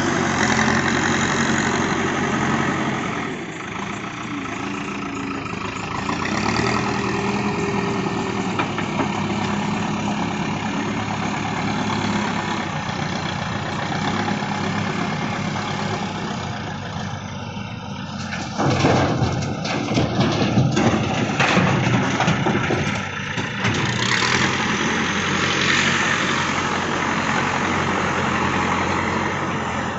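Backhoe loader's diesel engine running steadily under work. There is a burst of knocks and clatter about two-thirds of the way through, and the engine picks up again shortly after.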